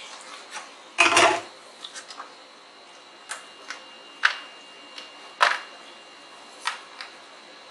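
Clicks and knocks of circuit boards and the plastic keyboard case being handled and fitted by hand. There is a louder clatter about a second in, then single sharp clicks about a second apart.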